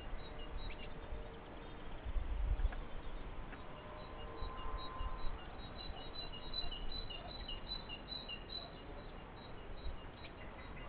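Small songbird chirping: short high chirps, with a quick run of about three a second in the middle. A few low rumbles on the microphone near the start.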